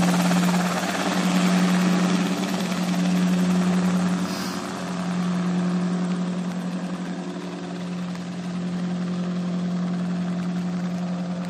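Helisport CH7 Kompress light helicopter flying away after take-off. Its engine and rotor noise holds a steady pitch while slowly fading, with gentle swells in loudness.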